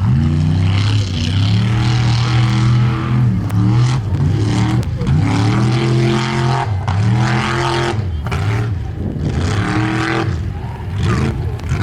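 Formula Offroad hill-climb car's engine revving hard, its pitch climbing and dropping again and again as the throttle is worked.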